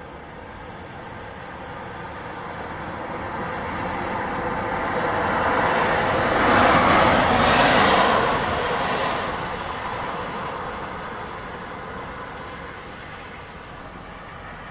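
A car passing by on a wet, snowy road: its tyre and engine noise swells, peaks about seven seconds in, and fades away.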